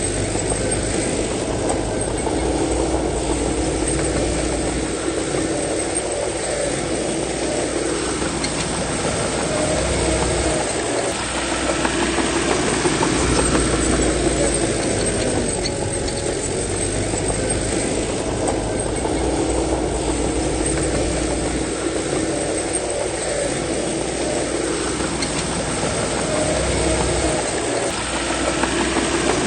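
Heavy earthmoving machine's diesel engine running continuously, its note rising and falling several times as it works.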